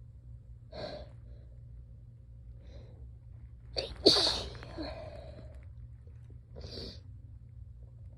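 A person sneezes once, hard, just after four seconds in. Shorter, sharp breaths come before and after it.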